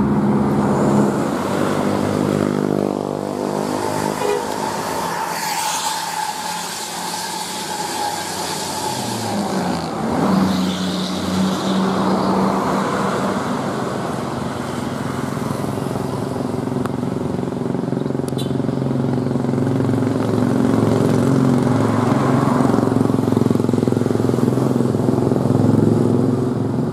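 Road traffic passing, led by heavy bus engines. One engine drone drops in pitch as it goes by a few seconds in. Another engine note climbs about ten seconds in, then a steady engine sound grows louder toward the end.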